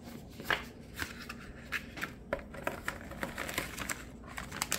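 Paper booklet and clear plastic bag rustling and crinkling as they are handled and lifted from a cardboard box, with scattered light clicks and taps.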